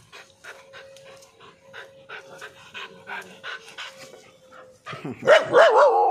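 Kombai dog panting in quick, regular breaths, then, near the end, a loud whining call whose pitch wavers up and down.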